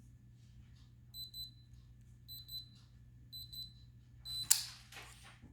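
Fingerprint padlock's electronic beeper giving short, high double beeps, three times about a second apart, then a single beep followed by a sharp click near the end.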